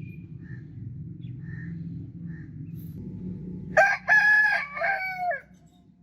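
A rooster crowing once, a single cock-a-doodle-doo about four seconds in that drops in pitch at its close, over a low steady rumble.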